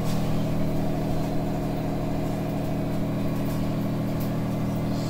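A steady low machine hum at an even level, without breaks or changes.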